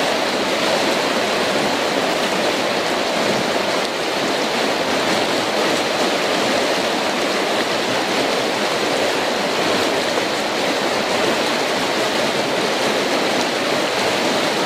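Whitewater of a mountain-river rapid rushing over rocks: a steady, unbroken sound of churning water.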